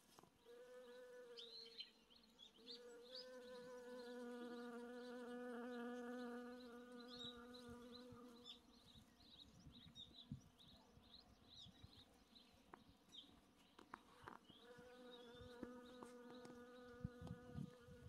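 Honeybees buzzing while foraging at flowering boxwood: a faint, even hum that swells and fades as a bee flies close, loudest for several seconds early on and again near the end. Faint short high chirps sound in the background.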